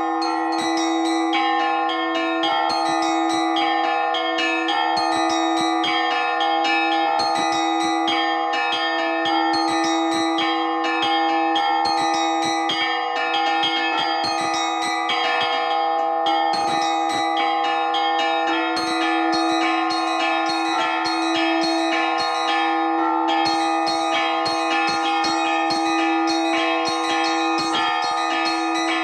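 Orthodox church bells rung by hand in an improvised peal: the deeper bells ring on steadily while smaller, higher bells are struck in quick, dense patterns of several strokes a second. This is the ringing that calls people to an evening service.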